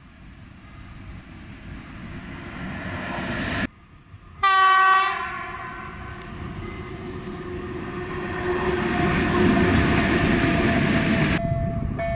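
An electric locomotive gives one short, loud horn blast about four and a half seconds in: the Rp1 'attention' warning signal sounded on approaching a level crossing. The rumble of the train builds before and after the blast as it draws near and passes. Near the end a level-crossing warning signal sounds a repeating tone.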